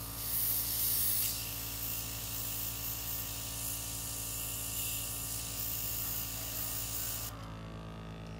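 KKMoon dual-action airbrush spraying, a steady high hiss of air and thinner, loudest in the first second and cutting off sharply about seven seconds in. It is flushing thinner through the gun to clean it after painting.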